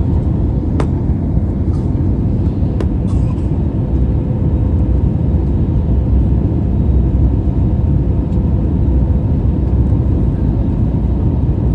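Steady low rumble of jet engine and airflow heard inside the cabin of an Airbus A321 airliner on final approach, with a faint steady hum tone. Two faint clicks about one and three seconds in.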